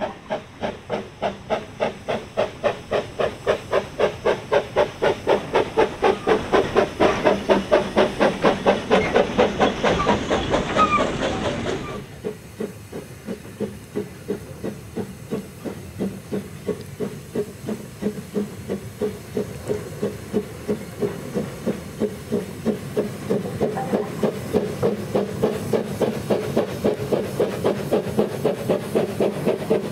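George England 0-4-0 saddle-tank steam locomotive 'Prince' working hard with a train, its exhaust chuffing in a rapid, even beat over hissing steam. About twelve seconds in the sound cuts abruptly and comes back quieter, then grows louder as the engine approaches.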